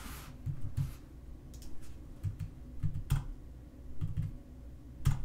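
Typing on a computer keyboard: irregular key clicks as a short terminal command is entered, with a louder click about three seconds in and another near the end.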